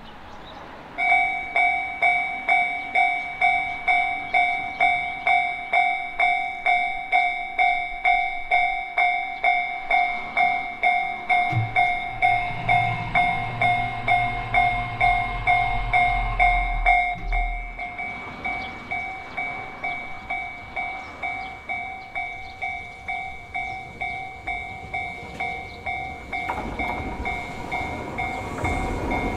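Japanese railway level-crossing alarm starts ringing about a second in, a repeating bright bell tone at about two and a half strikes a second. A low hum joins for several seconds midway, the ringing goes on more quietly after that, and the rumble of an approaching train builds near the end.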